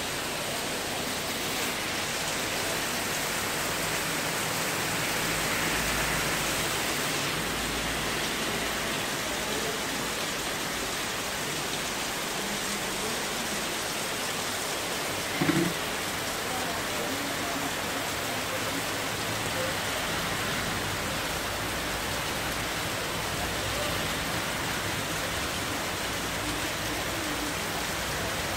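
Heavy rain pouring steadily in a downpour, with one brief louder knock about halfway through.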